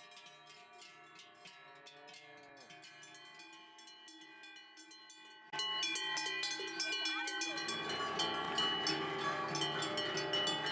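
Many cowbells on a herd of cattle clanging and ringing together, at first faint, then suddenly much louder about halfway through, with a low rumble joining near the end.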